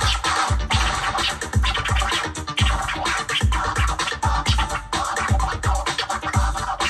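Turntable scratching: a sample cut back and forth by hand on the record over an electro-funk drum beat with a steady, punchy kick.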